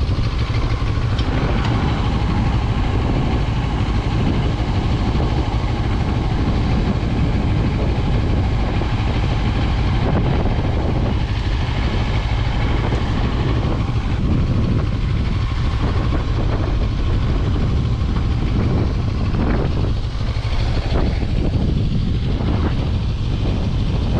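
CFMoto 650MT's parallel-twin engine running steadily, a deep, even drone with no marked revving.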